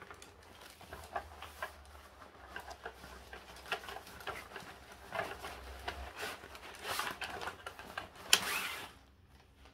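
Handling noise from a folding camping table being unpacked from its carry bag: fabric and plastic rustling with scattered clicks of its slats and aluminium legs, and one louder rustle near the end.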